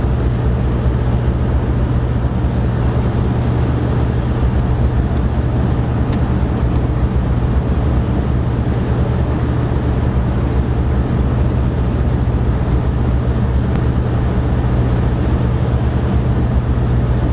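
A steady low mechanical drone with a constant hum, like an idling engine or running machinery, unchanging in level.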